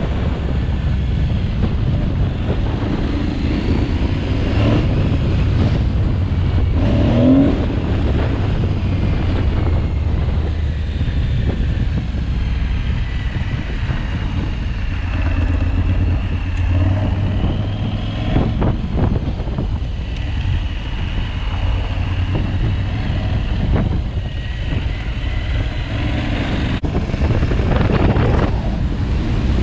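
Aprilia Tuareg 660's parallel-twin engine running under way off-road, its revs rising and falling a few times, with wind buffeting the microphone.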